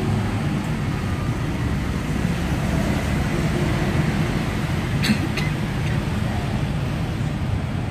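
Steady low background rumble, with a few short clicks about five seconds in.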